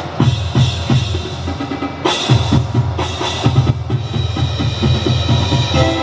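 Drum-driven marching-band music: bass and snare drums keep a steady beat, and near the end held melody notes come in over the drums.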